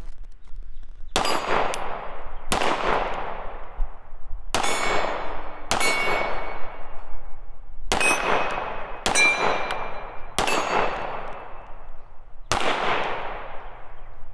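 Hi-Point C9 9mm pistol fired in slow, unhurried single shots, eight in all, one to two seconds apart. Each sharp report trails off over about a second.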